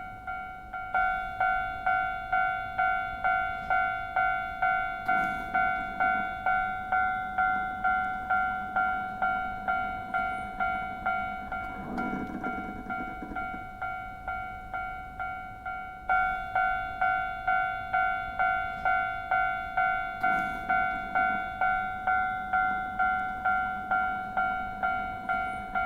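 Japanese railway level-crossing warning bell clanging in an even rhythm of about two strikes a second, each ring fading quickly. The strikes grow weaker, then restart louder about two-thirds of the way through.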